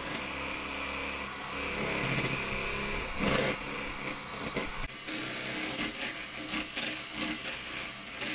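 Electric hand mixer running steadily, its beaters whirring through egg whites and powdered sugar in a glass bowl; the sound changes character about five seconds in.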